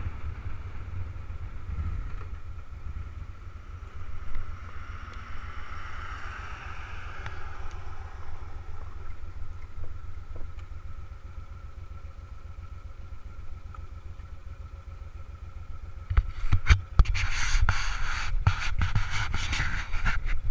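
Motorcycle engine running at low speed, heard as a low rumble with wind on the helmet-mounted camera's microphone. From about three-quarters of the way through, loud irregular rubbing and knocking as a hand handles the camera.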